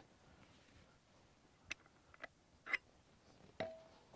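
Four faint metal clicks and taps in the second half as a lag-bolt gate hinge pin is turned by hand in a wooden post and a level is set against it. The last one rings briefly.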